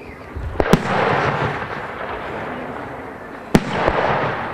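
Aerial firework shells bursting: two sharp bangs about three seconds apart, each followed by a lingering rush of noise.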